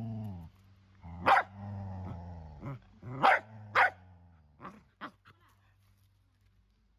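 A dog growling and barking: a low growl, then three loud sharp barks over about three seconds, followed by a couple of shorter, weaker barks before it goes quiet.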